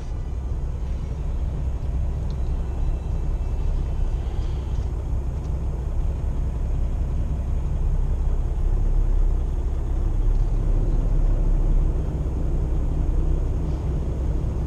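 Inside the cab of a 2015 Kenworth T680 semi truck: the diesel engine and road noise make a steady low rumble while the truck creeps along in slow traffic.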